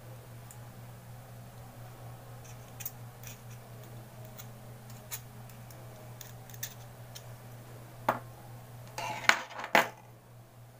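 Light clicks and scraping from handling a Zippo lighter's insert while cotton wadding is packed into it, with a cluster of louder sharp clicks near the end, over a steady low hum.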